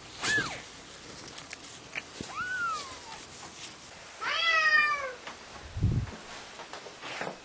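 Cat mewing: two short, thin, high calls that fall in pitch, typical of newborn kittens, then a louder, lower, fuller meow about four seconds in from an adult cat. A dull low thump near six seconds.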